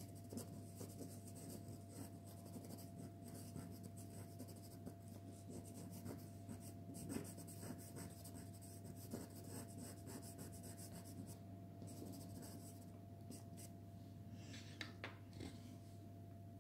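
Pastel pencil scratching faintly on pastel card in quick, short strokes, thinning out to a few scattered strokes after about eleven seconds.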